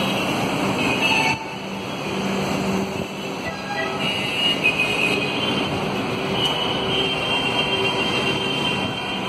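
Passenger train coaches rolling past as the train pulls out: a steady rumble of wheels on the rails with high squealing tones coming and going.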